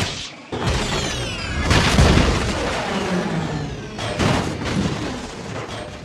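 Green Goblin film sound effect: a high descending whine, then a heavy boom about two seconds in that trails off into a long rumble, with a second hit about four seconds in.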